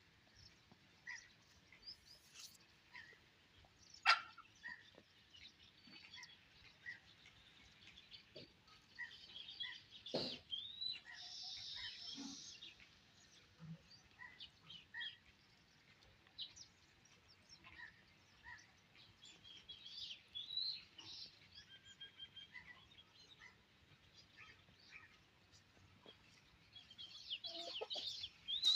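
Small birds chirping and tweeting on and off, with a sharp knock about four seconds in and another about ten seconds in.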